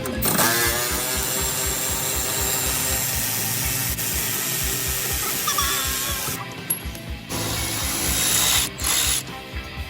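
A power tool running in two long stretches, stopping briefly between them, over background music with a steady beat.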